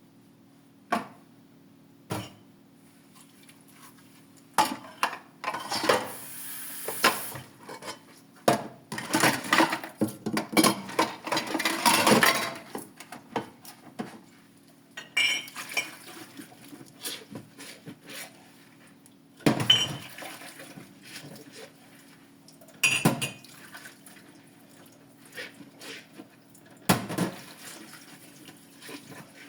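Dishes and cutlery clinking and clattering as they are handled and washed by hand in a sink, with sharp knocks scattered through and a busier stretch of clatter and water noise in the middle.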